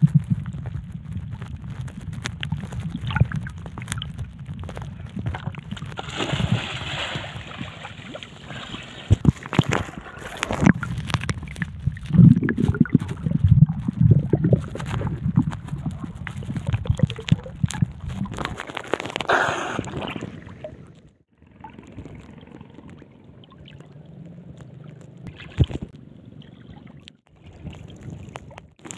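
Muffled sloshing and gurgling of sea water around a camera moved in and out of the water, with scattered splashes and pops. Softer for the last third.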